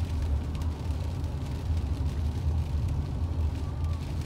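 Low, steady rumble of a car's engine and tyres heard inside the cabin while driving in rain, with faint scattered ticks of raindrops on the glass.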